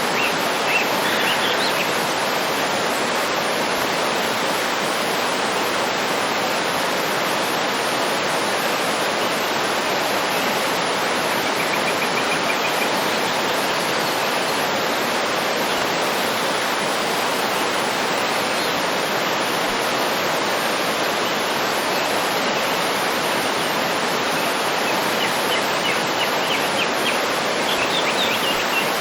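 Waterfall running in a steady, unbroken rush of falling water. Faint birds chirp over it briefly near the start, once about midway, and again near the end.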